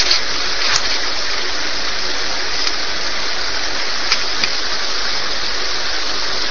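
Steady rushing noise, even and unbroken, with a few faint clicks.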